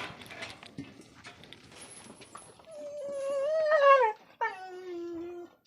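Goat bleating twice, two long calls starting about three seconds in: the first wavers and falls away at its end, the second starts with a drop and holds at a lower pitch. Faint knocks and rustling come before the calls.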